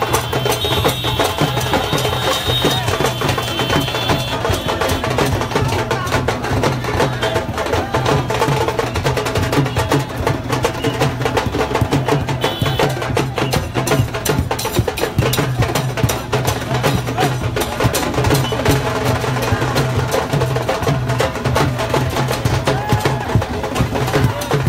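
Loud music driven by rapid, busy percussion: a steady stream of sharp drum strokes over a constant low drone, running on without a break.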